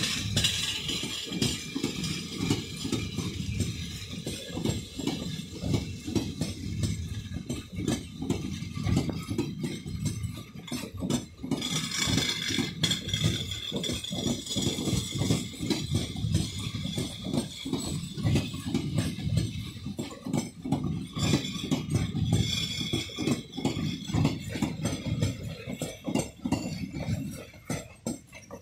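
Passenger coaches of a departing express train rolling past at speed, with their wheels clattering in a steady rhythm over a low rumble on the rails.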